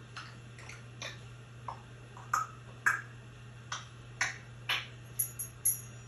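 African grey parrot making a series of about a dozen short, sharp clicks at an uneven pace, louder in the second half, ending with three quick high-pitched chirping clicks.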